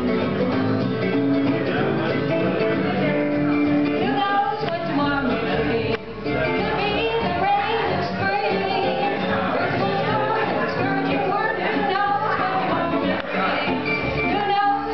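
A small acoustic band playing live: upright bass and a plucked string instrument, with a woman singing.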